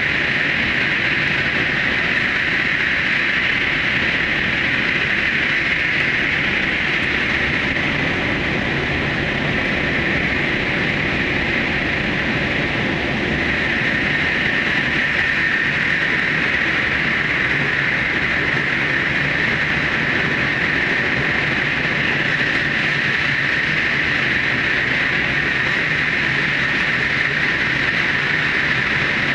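Steady running noise of the Super Hakucho electric express train travelling at speed through the Seikan undersea tunnel: a continuous, even hiss and rumble of wheels on rail, with no breaks or clatter.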